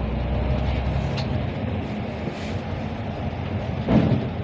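Road traffic running steadily, a low rumble with a louder swell about four seconds in.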